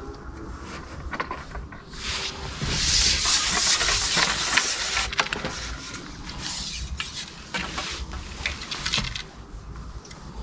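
Wind rustling and buffeting the microphone, swelling a couple of seconds in and easing near the end, with scattered small clicks and rubs through it.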